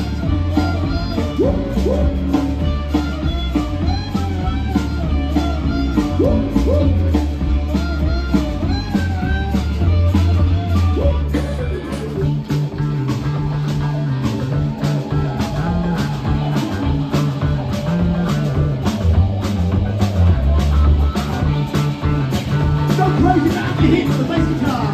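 Live rock band playing loudly: a steady drum beat of about two hits a second over a heavy electric bass guitar line, with a wavering lead melody in the first half. About halfway through the bass part changes.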